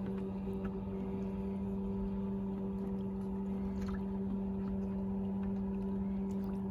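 Boat motor running at a steady, even hum, with a few faint ticks.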